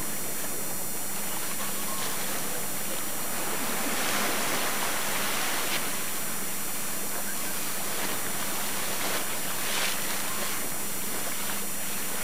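Steady rush of wind and water on an old camcorder's microphone, swelling about four seconds in and again about ten seconds in, over a faint low hum.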